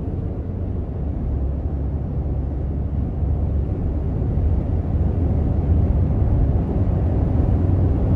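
Steady low rumble of road and engine noise heard inside a car's cabin while it is driven at speed on a motorway.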